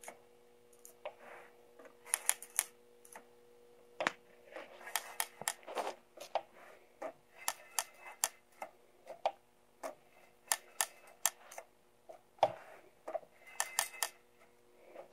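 Single-stage bandsaw tooth setter worked by hand: sharp metal clicks in quick clusters as the lever indexes the sawmill blade along tooth by tooth, three clicks and then the setting stroke on a tooth, over and over.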